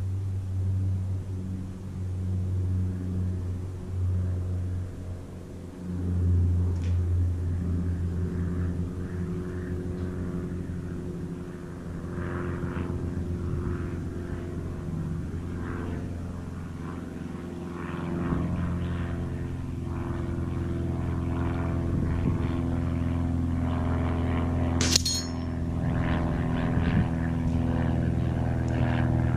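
A steady engine drone with slowly shifting pitch, like a distant propeller aircraft or machinery. About 25 seconds in comes one sharp, ringing metallic strike: an air-rifle pellet hitting a steel knockdown target plate.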